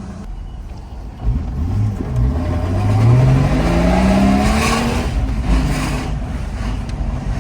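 Holden VY Commodore wagon's engine revving as the car accelerates, its note rising steadily for a few seconds and then levelling off.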